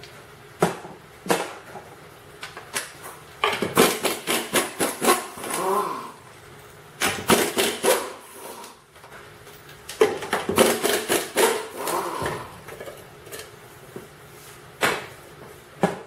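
Impact wrench hammering in three bursts of about two seconds each, loosening the lug nuts on a pickup's front wheel, with a few single clicks between the bursts.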